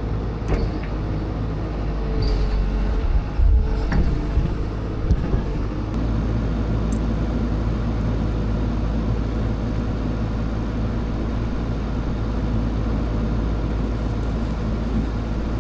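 Tracked excavator's diesel engine running steadily, with a few knocks and clanks a few seconds in as the machine works.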